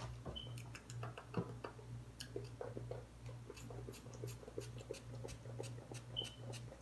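A pump-spray bottle of rose water spritzing over and over into an open mouth: many short sprays, about two or three a second, over a faint steady low hum.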